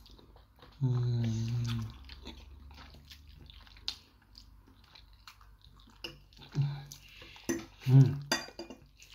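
A person slurping and chewing a mouthful of pasta in creamy sauce, with wet mouth clicks and smacks. About a second in comes a hummed "mmm" of about a second, and there are shorter hums near the end.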